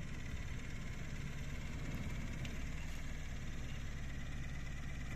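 Mahindra Maxximo Plus mini truck's engine running at low revs as the truck reverses slowly: a steady low rumble.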